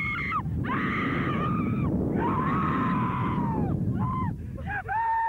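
Riders screaming on a giant swing: several long, held screams one after another, shorter cries near the end, over a loud rush of wind noise that eases off about four seconds in.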